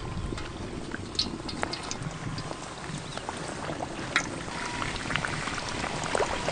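Hot oil sizzling and crackling steadily with many small pops as maida-batter-coated pieces deep-fry in a large pan, with fresh pieces being lowered into the oil.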